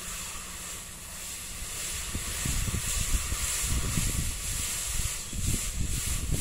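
Red-hot steel flint striker, forged from an old file, quenched in a tub of water to harden it: a steady sizzling hiss that starts at once, with bubbling gurgles growing louder after a couple of seconds as the water boils off the hot steel.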